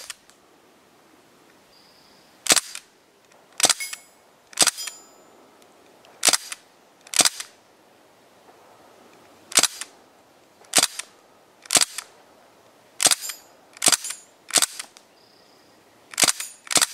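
Panther Arms DPMS CO2 BB rifle firing single shots, about a dozen sharp cracks spaced irregularly half a second to a couple of seconds apart. Several shots are followed by a brief high metallic ping as the BBs strike steel gong targets.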